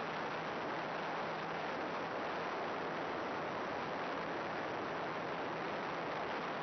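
Steady, even hiss with a faint low hum that never changes, with no motor note or other events: the noise of an analog FPV video downlink's audio channel.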